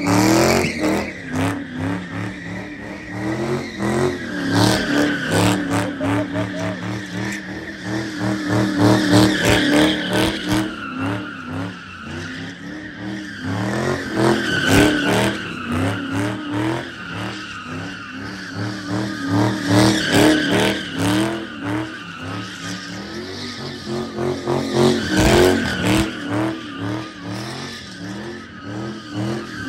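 Ford Mustang engine revving hard and repeatedly, its pitch rising and falling, while the rear tyres squeal and spin through doughnuts. The squeal swells with each burst of revs.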